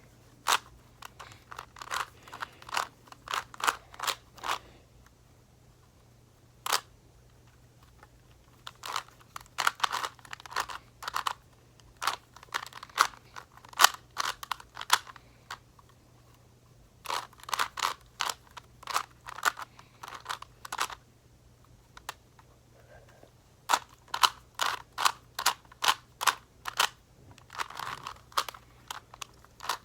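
Rubik's Cube being turned by hand, its layers clicking in quick runs of several turns a second, broken by pauses of a second or two.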